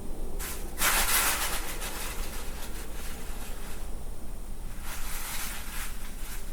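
An animal sniffing right at the audio recorder's microphone, in two bouts of quick sniffs with a pause between them, over a steady low hum.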